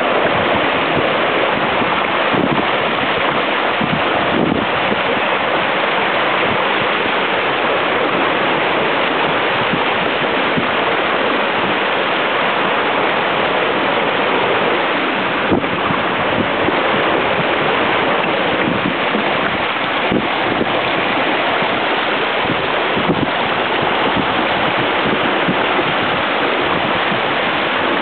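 Steady rush of wind on the microphone mixed with water hissing and splashing along the hull of a Mini 6.50 racing sailboat under way, with spray breaking over the bow.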